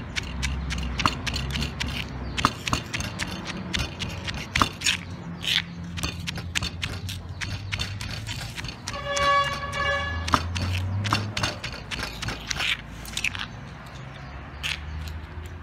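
Wooden pestle pounding and grinding dried shrimp and peanuts in a stone mortar: irregular knocks, several a second, with a metal spoon scraping the bowl. A steady pitched tone sounds for about a second just after the middle.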